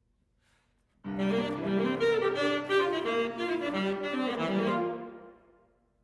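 Alto saxophone and grand piano playing a loud, fast passage of a classical sonata together. It starts abruptly about a second in, breaks off around five seconds, and the hall's reverberation dies away after it.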